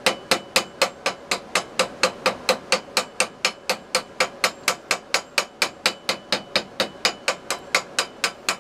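A hand hammer strikes red-hot steel in quick, even blows, about four a second, each with a short metallic ring. The glowing tip of a spoon bit is being forged over a round-topped steel post to form its curved cutting tip.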